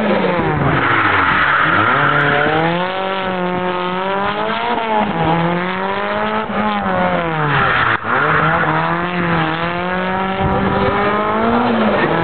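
Lancia Delta HF Integrale 16-valve's turbocharged 2.0-litre four-cylinder engine revving up and down repeatedly as the car is driven hard around a course, with tyres squealing about a second in and again around seven to nine seconds.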